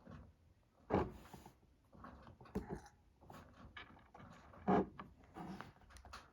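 Irregular knocks, clunks and rustles of objects being handled, the two loudest knocks about a second in and just before five seconds.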